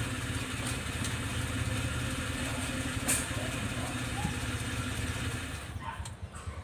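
Multicab engine idling steadily, then switched off about five and a half seconds in, its hum dying away.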